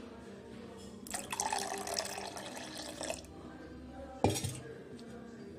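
Milk poured into a glass bowl of cracked raw eggs: a splashing pour that starts about a second in and lasts about two seconds. About four seconds in there is a single sharp knock.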